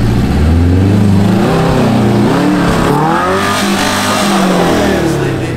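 Subaru Brumby's flat-four engine revving up and down as it crawls over deep ruts on a dirt track, the pitch climbing through the middle and falling away again near the end.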